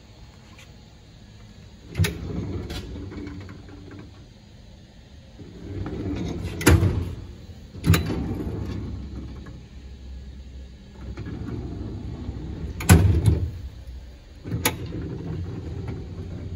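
Steel tool-cabinet drawers sliding open and shut on their metal runners, each run of rumbling slide noise ending in a sharp knock as a drawer reaches its stop, several times over.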